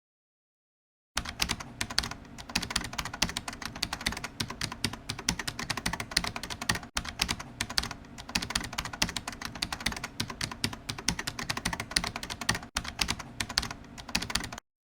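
Computer keyboard typing: a fast, continuous run of key clicks that starts about a second in and stops shortly before the end, broken twice for an instant.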